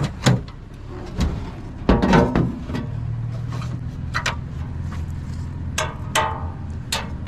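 Pieces of a cut-up stainless steel stove clanking and knocking as they are handled: several separate sharp knocks, with the loudest rattling clatter about two seconds in, over a steady low hum.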